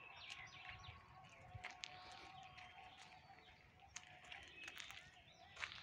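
Near silence outdoors, with scattered faint bird chirps.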